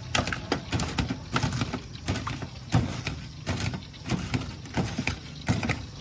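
Kitchen scissors snipping through crispy fried chicken pieces in a metal tray: a run of sharp, uneven snips, about two a second.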